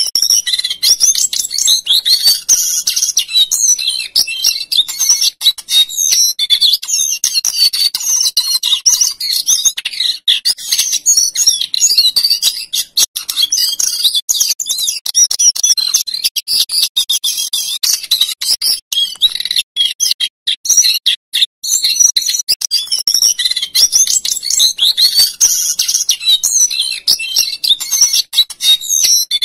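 Male brown jongkangan (cingcoang cokelat) singing without pause: a fast, varied stream of high rolling trills and flute-like whistled phrases.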